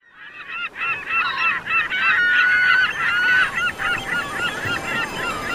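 A flock of birds calling, many short honking calls overlapping one another, fading in over the first second.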